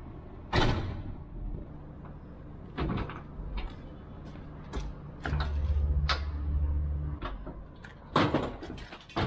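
Truck tail lift being lowered: its hydraulic pump hums steadily for about two seconds, then loud metal clanks near the end as the folded platform is swung open by hand. A sharp knock about half a second in and a few lighter clicks before that.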